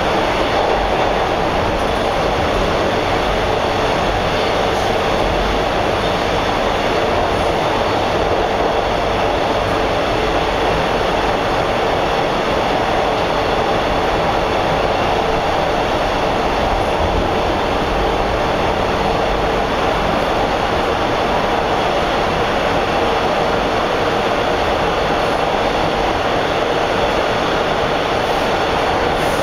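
Steady running noise of a Bombardier T1 subway car heard from inside the car while it travels at speed through the tunnel. The wheels and the car's running gear make an even, loud noise with no stops, squeals or single knocks standing out.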